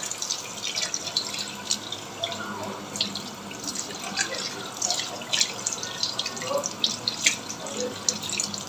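Tap water running into a stainless steel sink and splashing over a whole raw chicken as hands rub and rinse it, with frequent irregular splats of water.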